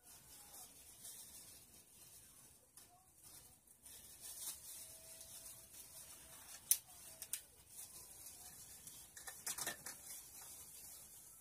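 Faint clicks and rustles of small plastic objects being picked up and sorted by hand, over a steady hiss; one sharp click stands out about two-thirds of the way in, and a quick run of clicks comes near the end.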